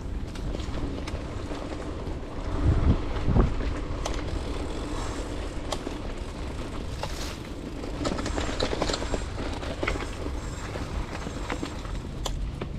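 Mountain bike rolling along a dirt trail: tyres running over packed earth and the bike rattling and clicking over bumps, with a steady low rumble. Two heavier thumps come a few seconds in.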